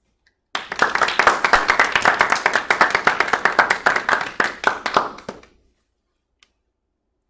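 Hand clapping: quick, steady claps that start about half a second in, go on for about five seconds and then fade out.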